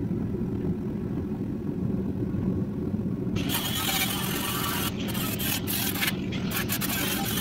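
A steady low rumble; about three and a half seconds in, a cordless angle grinder with an abrasive disc starts grinding on rusty sheet steel, in short passes with brief pauses.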